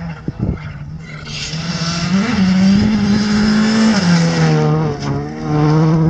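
Skoda Fabia R5 rally car, its 1.6-litre turbocharged four-cylinder engine at full throttle, passing close on a gravel road with the tyres throwing up loose gravel. The engine note rises and holds high, then drops about four seconds in as the car goes by.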